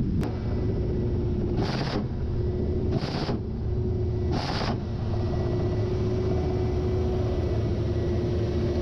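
Ka-52 attack helicopter in flight: a steady low rumble from its twin turboshaft engines and coaxial rotors, with a thin steady hum. A sharp click comes just after the start, then three short rushing bursts a little over a second apart.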